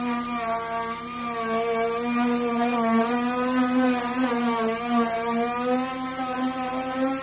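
A motor running steadily with a humming whine whose pitch wavers slightly.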